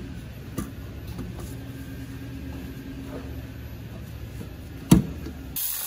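Hands working in an open engine bay: faint clicks of tools and parts over a steady low hum, and one loud, sharp knock about five seconds in. A steady hiss starts suddenly just before the end.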